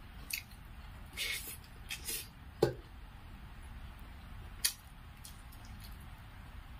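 Close-miked eating of rice and greens by hand: wet chewing and mouth clicks in short separate bursts, the loudest about two and a half seconds in.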